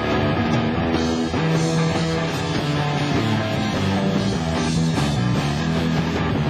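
Rock music.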